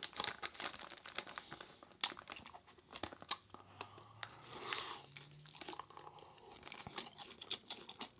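Close-miked chewing and crunching of Dorito-chip vegan nachos: irregular crisp crunches and mouth sounds, with a couple of sharper bites about two seconds in and near the end.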